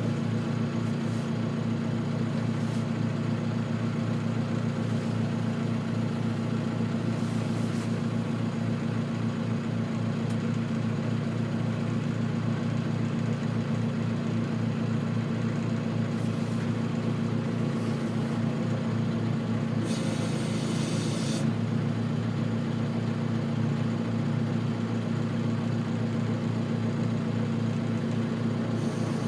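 John Deere compact tractor's diesel engine running steadily, heard from inside the cab. A brief hiss comes about two-thirds of the way through.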